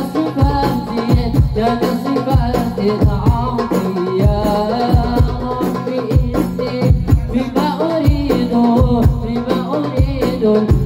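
A young man sings an Arabic devotional syair into a microphone through a PA, his melody rising and falling, over hand drums beaten in a steady rhythm.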